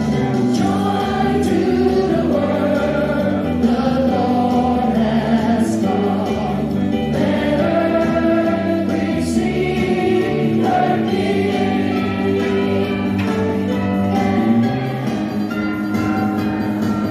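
A choir singing a Christmas carol, with voices holding and changing notes together.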